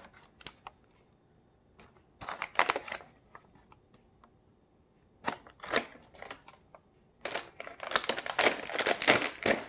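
Plastic snack bag of crispy seaweed crinkling as it is handled: two short bursts, then a longer run of crinkling over the last couple of seconds as the top of the bag is pulled at to open it.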